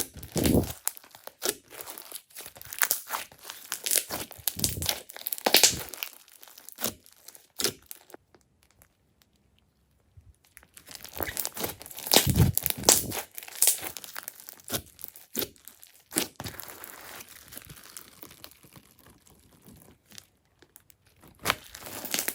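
Glossy slime being squeezed and stretched by hand: a run of wet crackling and popping clicks, with a pause of a couple of seconds midway.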